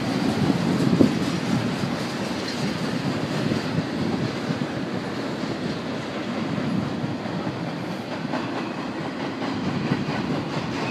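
Double-stack intermodal freight cars rolling past: a steady rumble of steel wheels on the rails, with a few faint clicks.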